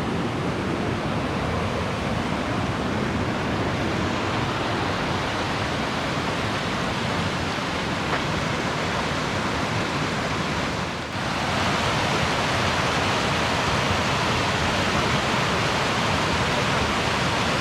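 Steady rushing of a waterfall running high with snowmelt, briefly dipping about eleven seconds in and then going on slightly louder.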